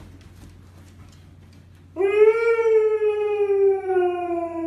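A husky howling: one long, drawn-out call starting about two seconds in, slowly falling in pitch.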